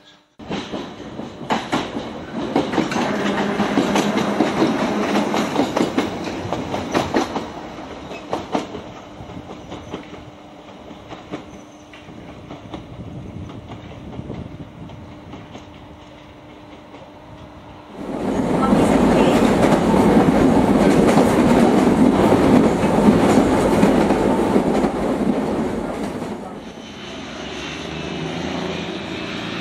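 Island Line Class 483 electric trains (ex-London Underground 1938 stock) running past, their wheels clicking over rail joints. There are two loud passes with a quieter stretch between them, and the second starts abruptly about eighteen seconds in.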